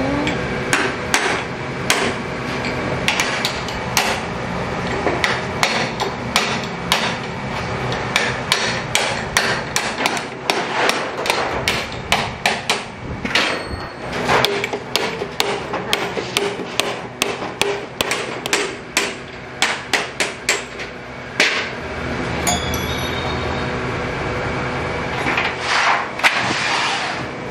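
Hammer blows on a steel chisel cutting stainless steel sheet along a steel template frame: sharp metallic strikes, coming in quick runs of several a second, with a lull a little after two-thirds of the way through. A steady machine hum runs underneath.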